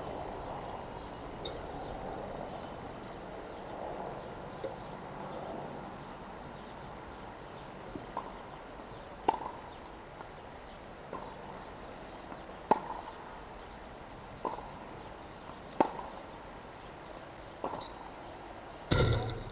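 Tennis racket strikes on the ball during a rally: sharp pops about every one and a half seconds, alternating louder and softer, starting about eight seconds in. A longer, louder burst of noise comes near the end.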